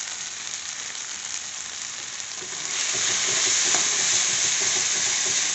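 Onion-and-spice masala sizzling in hot oil in a deep metal pan. It grows louder about two and a half seconds in, as a flat metal spatula starts stirring it around the pan.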